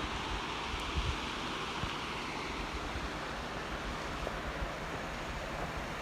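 Steady rushing of flowing stream water, with wind gusting on the microphone.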